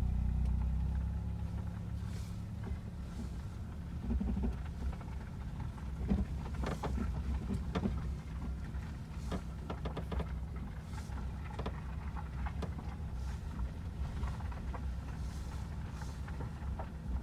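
Inside a 2020 Škoda Kodiaq on the move with its tailgate open: steady low road and engine rumble, with short irregular creaks and clicks from the rear of the cabin. The creak persists with the tailgate open, so the tailgate's rubber seal is not its cause.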